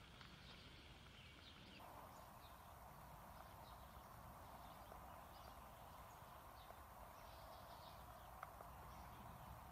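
Near silence: faint outdoor background with a steady low hiss and scattered faint high chirps.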